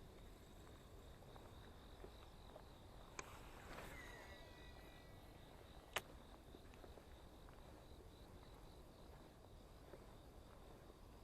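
Faint steady insect buzz over quiet outdoor ambience. About three seconds in there is a click, then a brief swish with a short whine, and about six seconds in a single sharp click.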